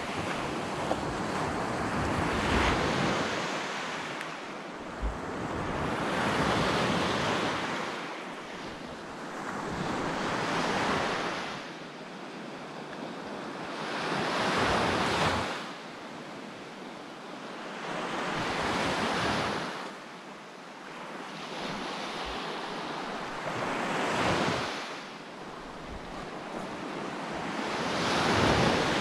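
Small ocean waves breaking and washing up the beach, the surf swelling and fading about every four seconds.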